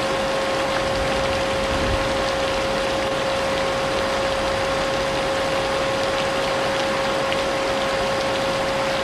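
Vacuum cleaner running steadily, its motor whining at one constant pitch, layered over the even hiss of falling rain with faint scattered drop ticks.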